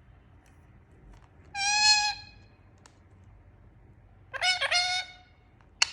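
Parrot calling twice: a single loud, held note about a second and a half in, then near the end a quick run of three rising notes that settles into a held note.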